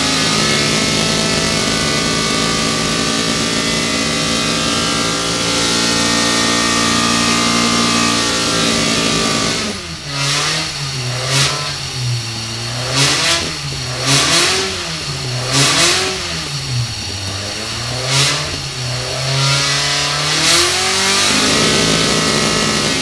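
A 1780cc Ford crossflow four-cylinder race engine (11.5:1 compression, 244 camshaft) running on a dynamometer. It holds a steady high speed, then about ten seconds in drops to lower revs and rises and falls in about six quick blips, before going back up to steady running near the end.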